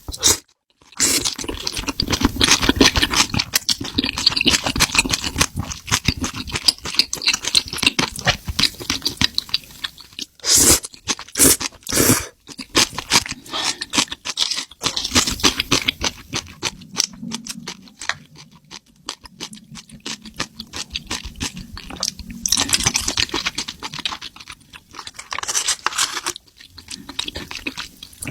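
Close-miked eating of spicy seafood: a dense run of chewing, crunching and mouth clicks, with a few louder bursts in the middle and near the end.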